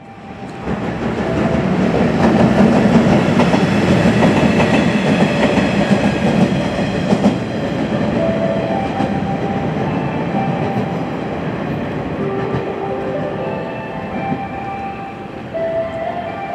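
A train hauled by an EF210 electric locomotive rolling along the track, with wheels clacking over rail joints. The rumble eases after about eight seconds, and steady high tones come and go.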